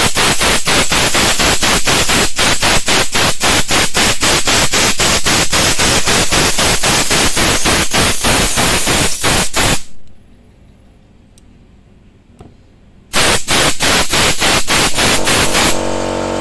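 Air blow gun blasting compressed air across a freshly washed and rinsed valve-radio circuit board to dry it: a loud hiss with a rapid, regular pulsing, about five pulses a second. The air stops about ten seconds in and starts again some three seconds later; music begins at the very end.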